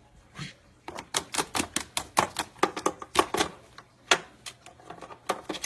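A parrot biting and chewing on a cord with its beak: a quick, irregular run of sharp clicks and crunches, several a second, with a few more near the end.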